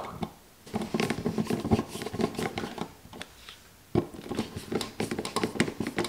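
Hand screwdriver turning the mounting screws of an electrical receptacle into its box: a run of small clicks and scrapes, a short pause a little past the middle, then more clicking.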